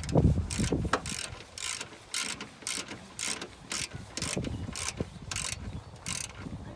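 Hand ratchet wrench clicking in short, repeated back-strokes, about three a second, as bolts on a cold air intake are tightened. A few low knocks in the first half-second.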